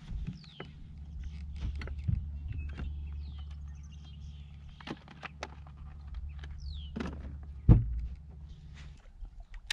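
Tackle being handled on a bass boat's deck while a swimbait is changed: scattered clicks, rattles and light knocks over a steady low hum, with a few short high squeaks and one loud thump about three-quarters of the way through.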